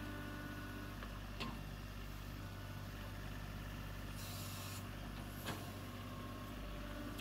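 John Deere compact tractor's diesel engine running steadily as its front loader digs dirt, with a sharp knock about a second and a half in, a brief hiss a little after four seconds, and another knock about five and a half seconds in.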